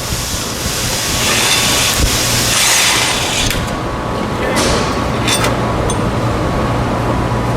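Impact wrench running in several short bursts on the driveshaft bolts, with a steady low hum underneath.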